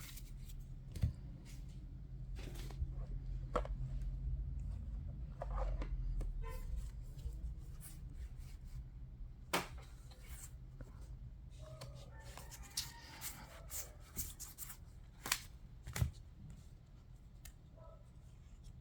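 Yu-Gi-Oh! trading cards being handled and sorted by hand: cards sliding and rustling, with scattered sharp clicks and taps as they are set down, over a steady low hum.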